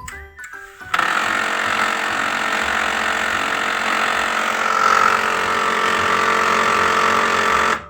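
HP LaserJet M1005 printer running after power-on with a loud, steady mechanical hum that starts abruptly about a second in and cuts off just before the end. The humming is a fault that could come from the main motor or the rear paper pickup assembly.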